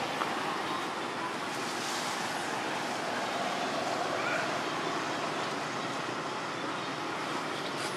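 Steady outdoor rushing noise, like wind or distant traffic, with a few faint, short high chirps.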